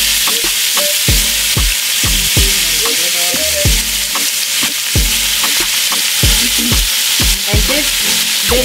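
Oxtail pieces sizzling as they brown in hot olive oil in a pot, with the pieces being turned. Under the sizzle runs background music with a deep beat of about two thumps a second.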